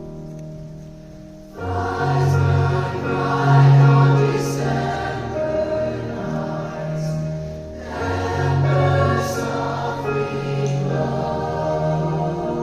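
Choir singing in harmony: soft held notes at first, then the full group comes in much louder about a second and a half in, with a short lull partway through before the voices swell again.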